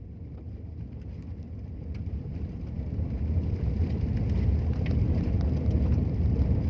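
Low road and wind noise of a moving vehicle heard from inside, rising steadily louder over the seconds.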